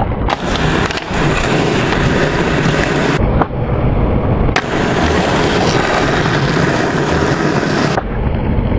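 Skateboard wheels rolling on rough asphalt with a steady rumble, broken by several sharp clacks of the board's tail popping and the board landing during flip tricks.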